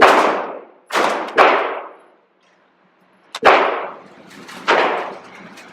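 Gunshots fired one at a time on a shooting range: about five sharp cracks, each with a short echoing tail, two in quick succession about a second in and a pause before the next ones.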